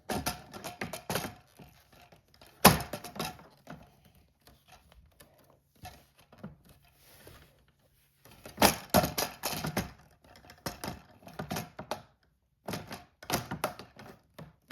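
Hard plastic toy barn parts clicking and knocking together as pieces are handled and pushed into place, in bunches of rapid clicks with quiet gaps, the loudest a sharp knock about three seconds in.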